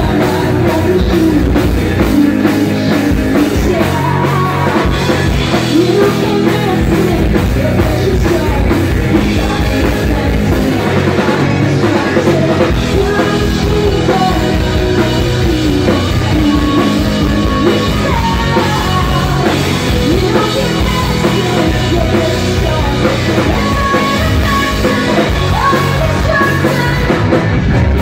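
Live rock band playing loud and continuously: drum kit, electric guitar and bass guitar, with a woman singing into a microphone.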